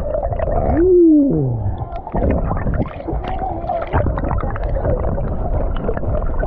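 Turbulent river water heard from underwater: a muffled rushing and gurgling with many small bubble pops and knocks. About a second in comes a muffled tone that rises and then slides down.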